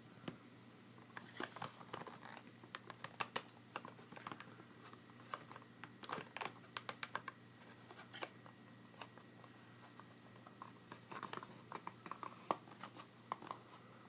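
Plastic action figure being handled and posed: irregular small clicks and taps of its limbs and joints, some in quick clusters, with faint rustling between.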